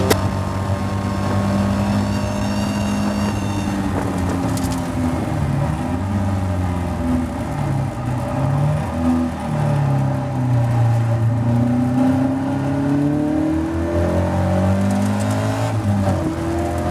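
Caterham Seven race car's four-cylinder engine heard onboard at racing speed, revving up and down through the gears: the pitch drops a couple of times under braking and downshifts, then climbs again under full acceleration near the end.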